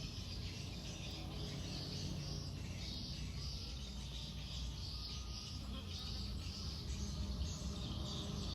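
Outdoor wildlife ambience: high chirping repeating about once or twice a second over a steady low rumble.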